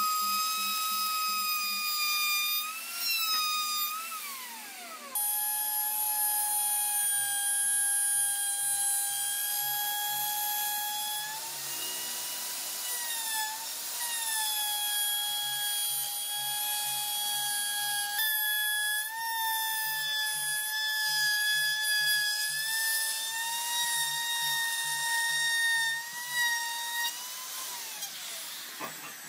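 Electric plunge router running at a high whine while cutting a groove along a wooden panel; its pitch dips and recovers as it is pushed through the wood. Near the end the motor winds down as it is switched off.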